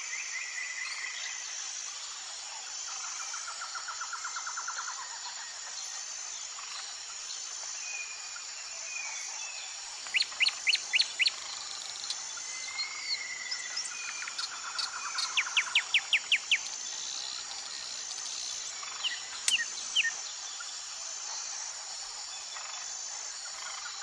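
Bird song: soft trills at first, then from about ten seconds in a common nightingale singing loud bursts of rapid repeated whistled notes, three phrases a few seconds apart, over a steady high-pitched hiss.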